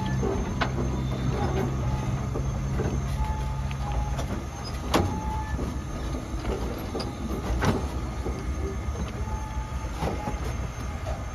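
East Broad Top narrow-gauge train rolling slowly, its wheels rumbling and clacking over rail joints and switches, with a few sharp knocks and brief wheel squeal. A low hum fades out about four seconds in.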